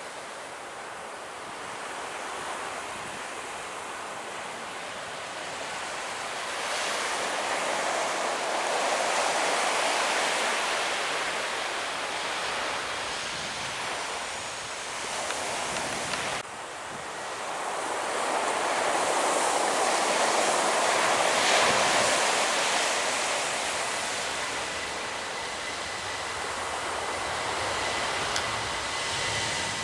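Jet airliner engine noise, swelling to a peak about ten seconds in and breaking off abruptly at about sixteen seconds. It swells again to a second peak around twenty seconds in, with a faint steady high whine through the second half.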